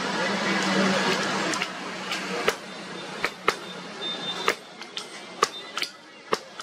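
Blacksmith's hammer striking hot wrought iron on an anvil while forging horseshoes: about ten sharp, irregular blows, some with a short metallic ring. The blows come after a denser stretch of background noise in the first second and a half.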